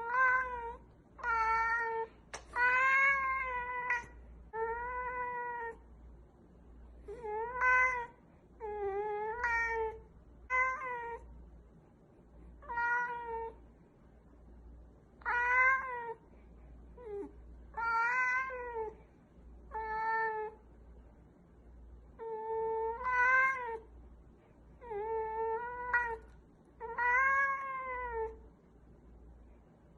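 A cat meowing over and over: a long series of separate calls, each about half a second to a second long, each arching slightly up and down in pitch, with short pauses between them.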